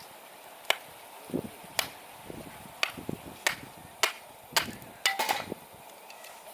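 A series of about eight sharp strikes, roughly one every half second to a second, several in quick succession near the end, like hammering.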